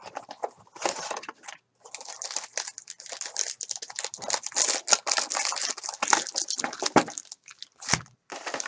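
Crinkling and tearing of plastic wrapping as a sealed box of trading cards is opened, a dense run of crackles with a couple of short pauses.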